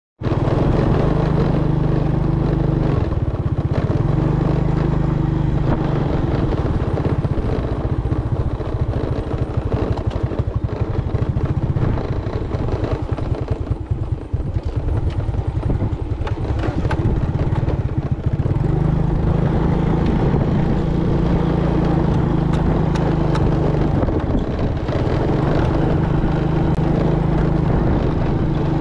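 Small motorcycle engine running under way as it is ridden along a rough dirt track. Its note is steady for long stretches and less even through the middle.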